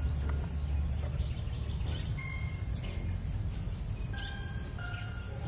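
Outdoor background: a steady high-pitched insect drone over a low hum, with a few faint short bird chirps.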